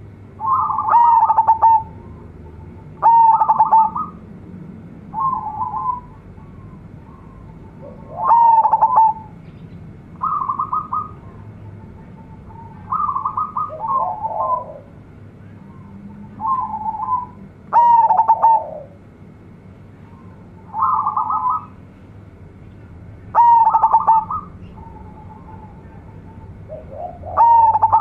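Zebra dove (perkutut) in full song, cooing over and over in short phrases of quick rolling notes every two to three seconds. Some phrases are loud, with others softer in between.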